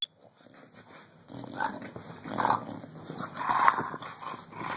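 Two dogs, one an English bulldog, play-wrestling, with growls in short bursts that are loudest a little past halfway.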